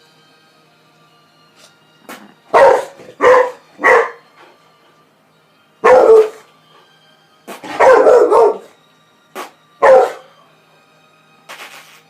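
Boxer dog barking: about six loud, short barks spaced a second or two apart, starting a couple of seconds in.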